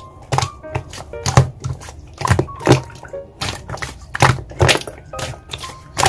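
Slime being squeezed and pressed by hand, giving sharp wet clicks and pops about twice a second, over light background music.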